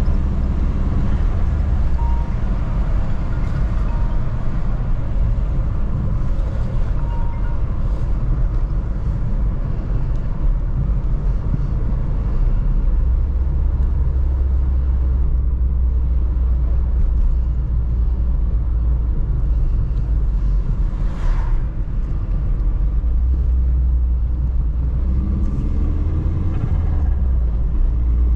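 Audi A3 1.8T's turbocharged inline-four (AGU, K03 turbo, cone filter) running on the road with a steady low drone. About three-quarters of the way through there is a brief high sweep as the load briefly drops, and near the end the engine pitch climbs as it revs up.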